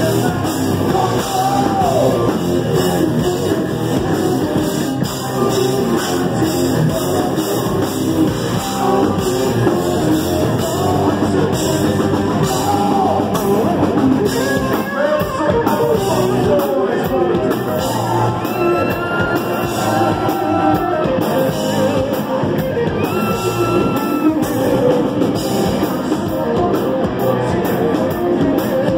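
A rock band playing live and loud: electric guitar and bass guitar over a drum kit, with a singing voice.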